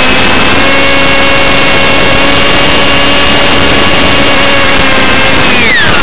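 Electric motor and pusher propeller of a ParkZone Stryker F-27Q flying wing whining steadily in flight under heavy wind rush on the onboard microphone. Near the end the whine drops sharply in pitch as the motor slows.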